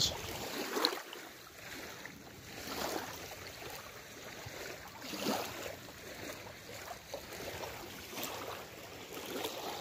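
Gentle lake water lapping at the shore: a soft, even wash that swells a little now and then.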